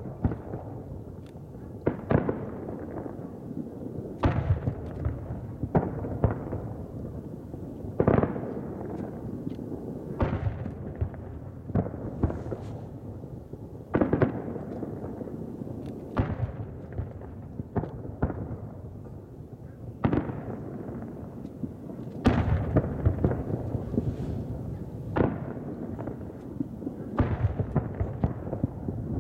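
Distant aerial fireworks shells bursting in a steady run of booms, roughly one every two seconds. Each bang trails off into a low rumbling echo.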